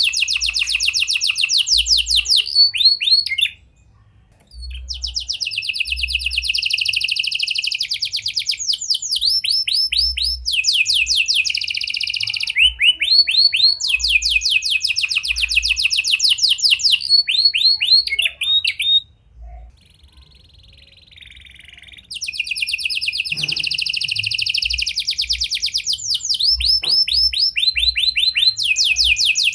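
Red-factor canary singing long phrases of fast trilled and rapidly repeated notes, a song built with prinia (prenjak) and lovebird phrases. The song breaks off briefly about four seconds in and again for a couple of seconds about two-thirds of the way through.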